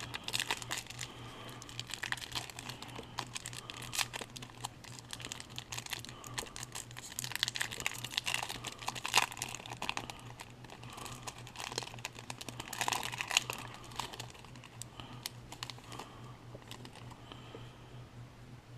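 A pack of baseball cards having its wrapper torn open and crinkled by hand, a run of irregular crackles and small clicks, over a faint steady low hum.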